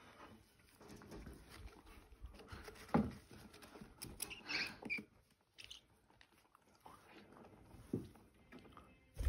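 Budgerigar chicks shuffling and scratching their feet on a plastic tray, with soft patter and a couple of sharper ticks. A few faint, short chirps come about four to five seconds in.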